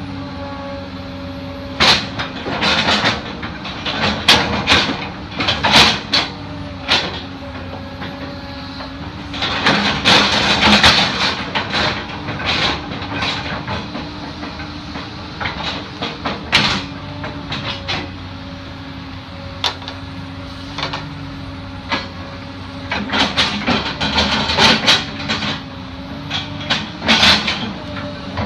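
Tracked excavator engine running steadily while the bucket digs into a stump's root ball, with repeated knocks, scrapes and clatters of roots and soil. There is a longer stretch of scraping about ten seconds in and a run of knocks near the end.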